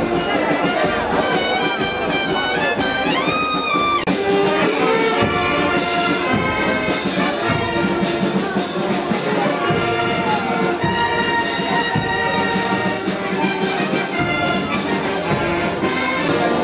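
Brass band of trumpets, trombones, saxophones and clarinets playing a tune over a steady beat.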